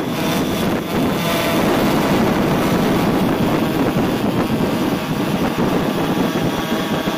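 DJI Phantom 3 Advanced quadcopter's four motors and propellers running steadily at takeoff power close overhead as it climbs away, with wind buffeting the microphone.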